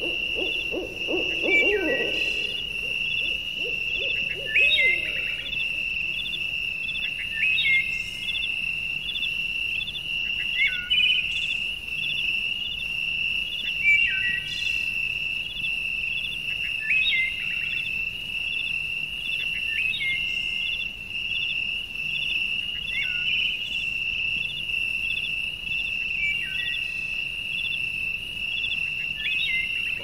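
Animal calls: a steady high-pitched trill with fine even pulses throughout, and a short falling call repeated about every three seconds. A lower wavering call sounds in the first few seconds.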